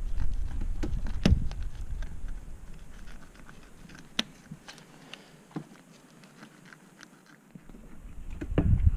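Fillet knife working along a largemouth bass's backbone, with soft crunching of flesh and bone and a few sharp ticks, over a low rumble that fades after the first few seconds and returns near the end.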